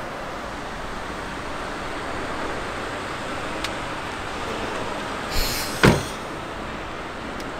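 Steady background noise like distant traffic, with a faint click and then a short rustle followed by a single solid thump, the loudest sound, about six seconds in.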